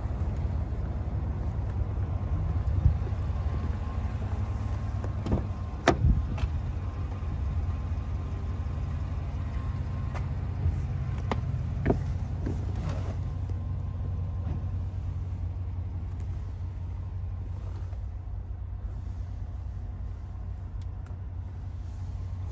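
A 6.2-litre V8 idling steadily as a low rumble. There are a few sharp clicks and a knock about six seconds in, and more clicks between about ten and thirteen seconds in.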